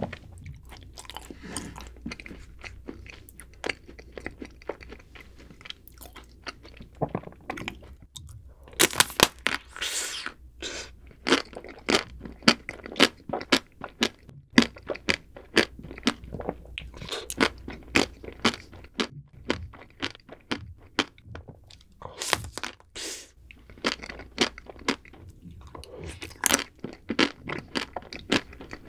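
Close-up crunching and chewing of a chocolate-coated ice cream bar: the hard chocolate shell cracks in sharp clicks, in loud clusters of bites with softer chewing in between.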